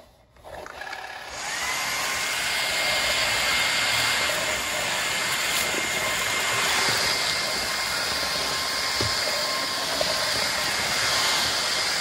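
Kyvol V20 cordless stick vacuum switched on about a second in, its brushless motor spinning up and then running with a steady high whine over a rush of suction air as the small brush head passes over a hardwood floor.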